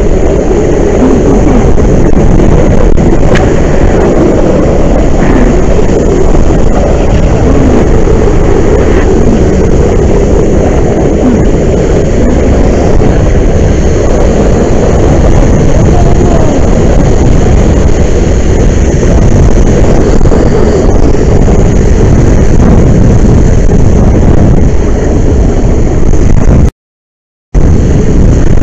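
A fire hose flowing a wide fog pattern onto a burning rail tank car: the water spray and the fire together make one steady, very loud rushing noise that overloads the microphone. The sound cuts out completely for under a second near the end.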